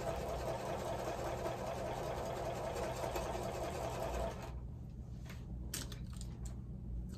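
Sewing machine stitching steadily, stopping abruptly about four and a half seconds in; a few sharp clicks follow near the end.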